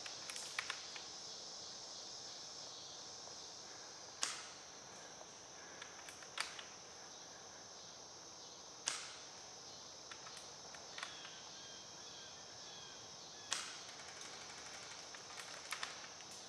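Airsoft guns firing single shots in woodland: sharp cracks, one every two to three seconds, about six in all.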